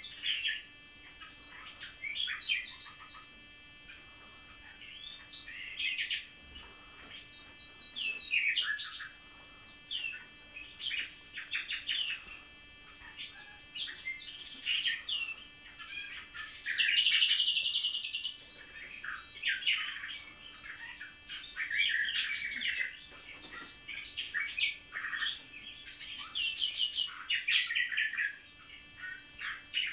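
Nightingales and a blackcap singing: a run of short, varied song phrases a second or two apart, many made of rapid repeated notes, the loudest a dense trill about halfway through.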